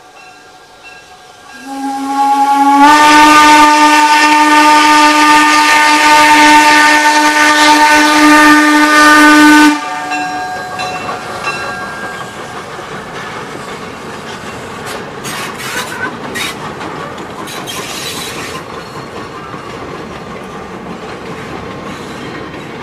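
Steam whistle of Jeddo Coal #85, an 0-4-0T tank steam locomotive, blowing one long blast of about eight seconds at a grade crossing, rising slightly in pitch as it opens fully, then cutting off. The locomotive and its train then roll across the crossing with a steady rumble and rail clatter, with a few sharp clicks about fifteen seconds in.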